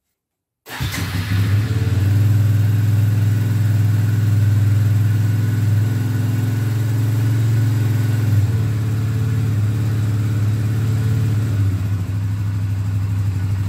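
2004 Suzuki Eiger 400 ATV's single-cylinder four-stroke engine comes in about a second in and runs at a steady idle. It is running smoothly with a newly fitted flywheel, which replaced one with loose magnets that made the ATV hard to start and prone to stalling.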